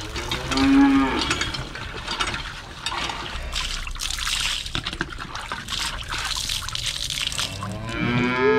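Cattle mooing twice, a short call about half a second in and a longer one near the end. Between the calls, water splashes as it is poured from a mug.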